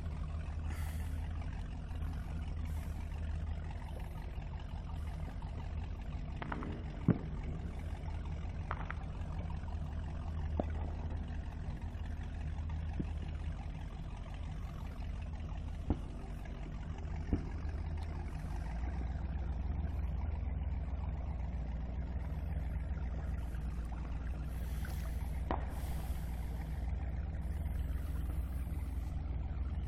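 Steady low drone of an old boat motor running, with a few faint sharp clicks.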